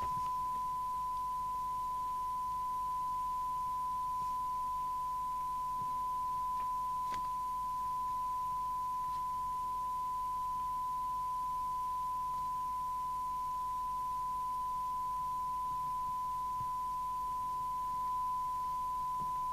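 Steady, unbroken 1 kHz test tone from an FM CB radio's receiver: the set is receiving a signal generator's FM carrier modulated with a 1 kHz tone.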